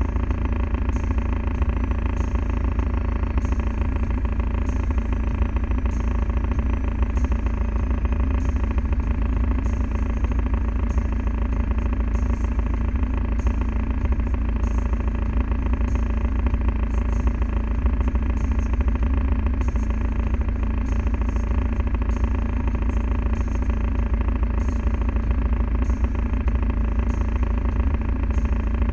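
Land Rover Defender diesel engine running steadily, a constant low rumble with no revving. A faint regular tick sounds a little over once a second throughout.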